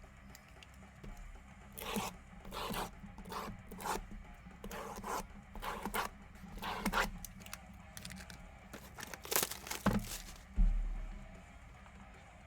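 Plastic wrapping on trading-card boxes being ripped open and crinkled in a run of short tears, followed by a single low thump near the end.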